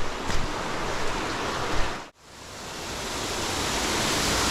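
Rushing creek water, a steady hiss of flowing water. About two seconds in it cuts out abruptly, then fades back in and grows louder.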